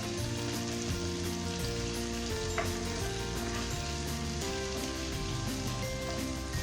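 Rice noodles sizzling as they fry in hot oil in a pan, a steady sizzle with a single sharp click about two and a half seconds in.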